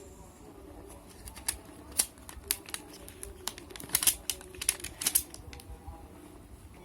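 Irregular sharp clicks and taps of a laptop RAM stick (an 8 GB DDR3L module) being pressed and worked into its memory slot, with short clusters of clicks around two and around four to five seconds in. The module is not yet seating because its notch doesn't line up with the slot's key.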